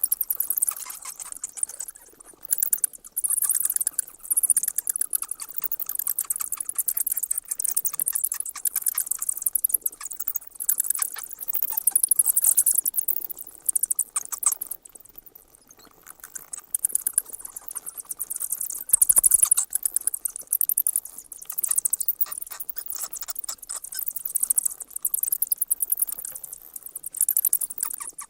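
Bats squeaking: rapid, very high-pitched chittering in clusters of several seconds, with short lulls between them, the longest about halfway through. A brief low thump sounds about two-thirds in.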